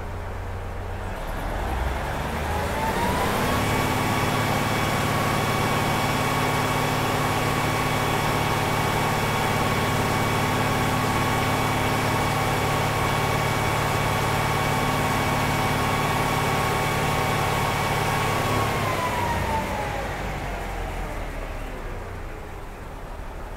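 Cummins DMF14HZ turbocharged six-cylinder diesel engine of a KiHa 47 railcar, free-revved while stationary: it rises from idle a couple of seconds in, holds at high revs for about fifteen seconds as a steady drone, then winds back down to idle near the end.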